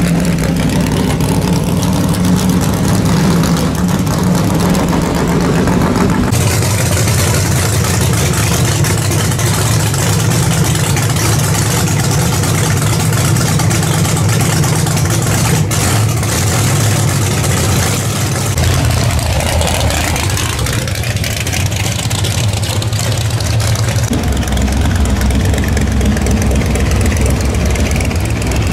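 Drag-racing V8 engines idling loudly in the pits, one car after another, the sound changing abruptly about six, nineteen and twenty-four seconds in.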